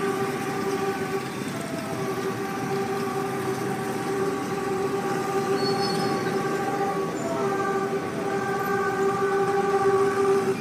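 Diesel-electric locomotive's air horn sounding long, steady blasts as the train approaches, with brief breaks about two seconds in and about seven seconds in, over a low rumble of the train.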